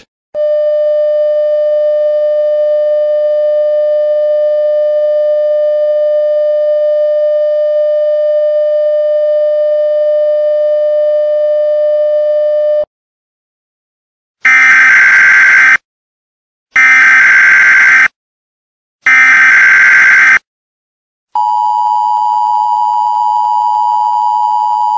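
Emergency Alert System tones: a long, steady buzzing electronic tone for about twelve seconds that cuts off, then three short bursts of screeching data noise about a second apart, the alert header, and near the end the two-pitch EAS attention signal starts and holds.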